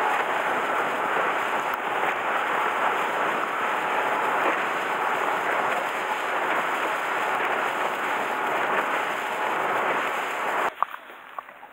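Steady rush of wind and water spray from a small fishing boat running fast over choppy sea. It cuts off abruptly about a second before the end, leaving a much quieter background with a few light clicks.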